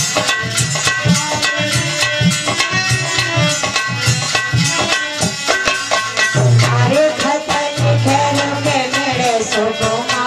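Instrumental interlude of devotional folk music: harmonium playing held chords and melody over a hand drum keeping a fast, steady beat.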